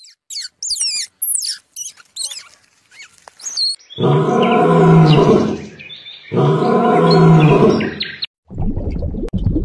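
A run of high chirping calls, then two long, loud roars from a large animal, each about two seconds, with a rushing noise starting near the end.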